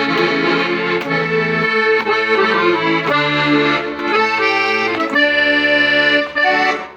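A G. Argentati Italian accordion being played in a sound test: sustained, reedy chords over bass notes, the harmony changing about once a second, with a short break about six seconds in.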